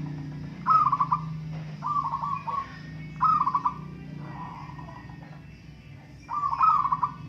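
Zebra doves (perkutut) cooing in turn: short rolling coo phrases of rapid trilled notes, four or five of them a second or so apart, with a gap before the last one.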